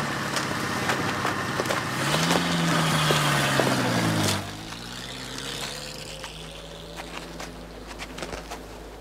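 A motor vehicle engine runs loudly, its pitch rising and then falling away, and it cuts off abruptly a little over four seconds in. A quieter stretch with a low steady hum and faint scattered ticks follows.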